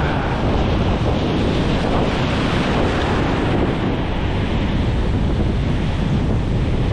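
Ocean surf breaking and washing up the beach as a steady rush, with wind buffeting the microphone in a low rumble.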